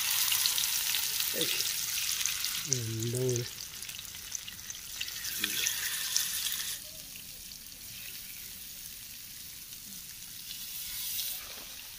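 Masala-coated fish sizzling as the pieces are laid into hot coconut oil in a frying pan. The sizzle is loudest for the first several seconds, then drops to a lower, steady hiss about two-thirds of the way through.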